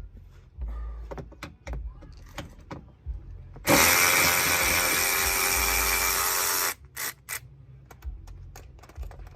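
A power drill runs for about three seconds, its pitch sagging slightly under load. Short clicks and knocks of tools being handled come before and after it.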